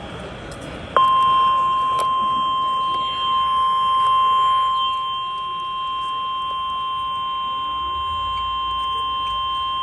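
NOAA Weather Radio warning alarm tone (1050 Hz), sounded for the weekly test. It is a single steady, unbroken beep that starts about a second in and holds for about nine seconds before cutting off.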